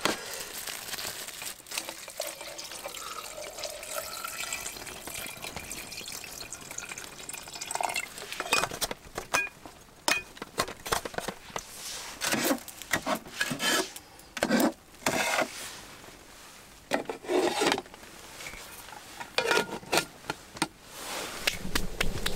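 Metal camp cookware handled on a table: faint liquid sounds at first, then, from about eight seconds in, a run of irregular clinks and knocks of the pot and utensils.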